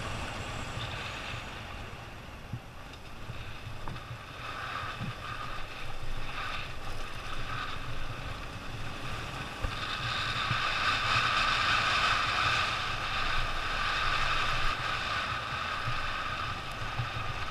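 Motorcycle engine running while riding, with wind noise on the microphone; the engine's sound grows louder about halfway through.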